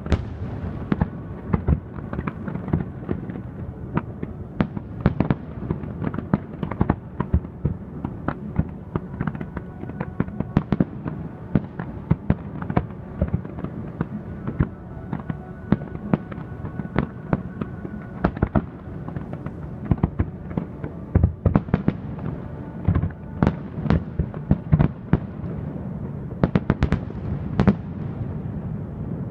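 Fireworks display: a dense, irregular run of shell bursts and crackling reports, several a second, going on throughout.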